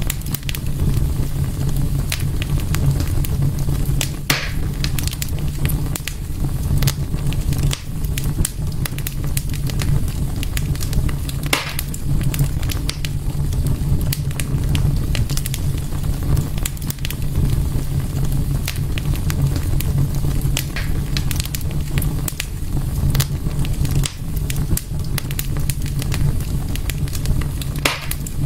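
Fire burning in a fireplace, a steady low rumble with frequent crackles and pops. Louder pops come about 4 and 12 seconds in and again near the end.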